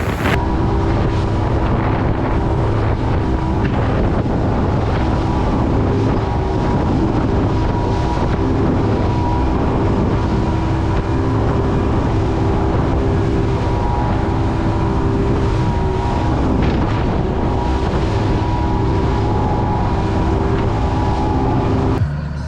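Fishing boat's engine running steadily underway, with a steady droning hum and wind buffeting the microphone.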